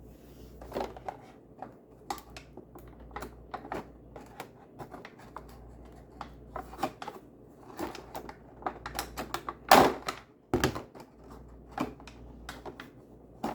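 Irregular small clicks, taps and rustles of cardboard and plastic packaging being handled while an advent calendar compartment is opened, with two louder rips about ten seconds in.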